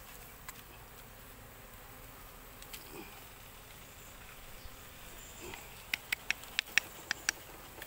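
Honeybees buzzing faintly around a small wild honeycomb. Near the end comes a quick run of about seven sharp clicks.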